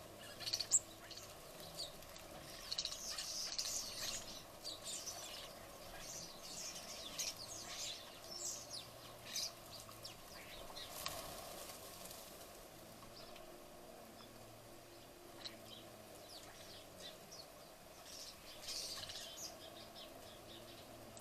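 Small garden birds chirping in scattered bursts of short, high calls, busiest in the first few seconds and again near the end, over a faint steady background hum.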